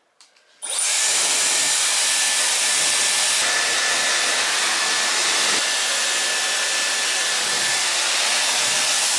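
Hand-held hair dryer switched on just under a second in, then blowing steadily with a loud even hiss and a faint high whine.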